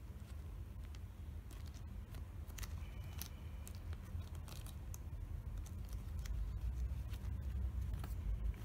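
Fingers flexing and folding a white nonwoven mask filter insert, giving scattered soft crinkles and clicks, with handling noise growing louder near the end as a hand reaches into the cardboard box. A steady low hum runs underneath.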